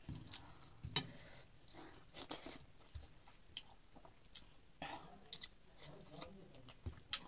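Quiet eating by hand: fingers mixing rice with fish curry on a plate and chewing, with a few short sharp clicks scattered through.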